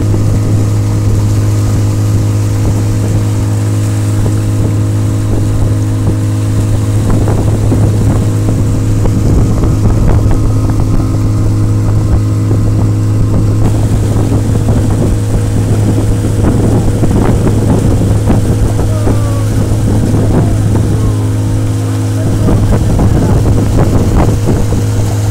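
Yamaha Enduro outboard motor running at a steady cruising speed, a constant low drone, with water rushing and splashing along the hull from about seven seconds in.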